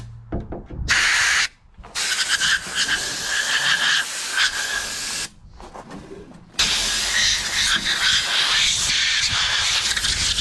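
Compressed-air blow gun hissing in blasts: a short blast about a second in, then two long blasts of several seconds each, with a brief pause between them.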